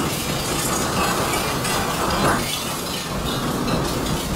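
Freight train cars rolling past, a steady rumbling noise with a dense, uneven clatter of small clicks and rattles.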